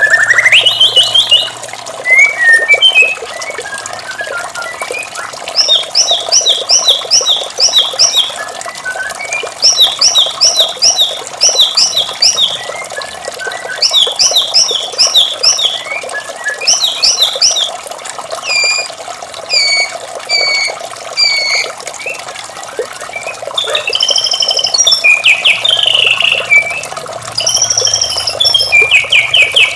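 White-rumped shama singing: phrases of quick repeated whistled notes, about five or six to a phrase, broken by short pauses, over a steady sound of running water.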